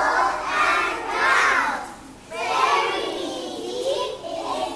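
Many young children's voices together in two loud stretches, with a short break about two seconds in.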